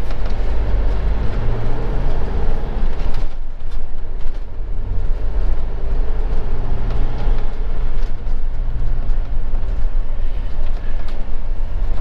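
Motorhome engine and road noise heard from inside the cab while driving slowly, a steady low rumble. It eases off briefly about three seconds in, then picks up again.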